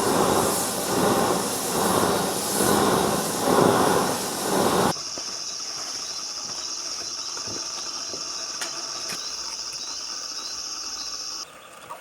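Waste-oil-fired foundry furnace running with a loud hissing roar that swells and falls about once a second. About five seconds in it cuts off abruptly to a quieter, steady high-pitched drone.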